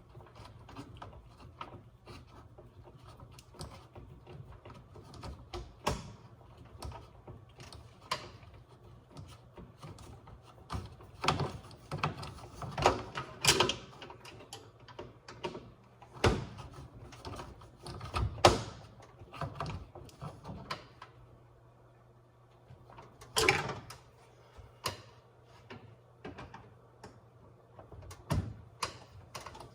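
Irregular clicks, taps and knocks of hands and tools working on a microwave door and its plastic handle parts, with a few louder knocks spread through.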